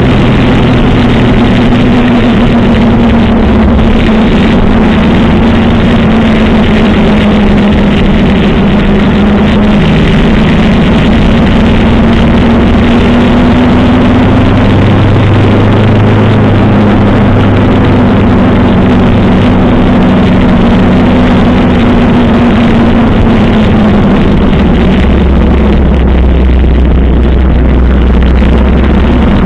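1985 Suzuki GS 700 ES motorcycle's inline-four engine running steadily at cruising speed, its pitch drifting a little, heard on board under heavy wind and road noise.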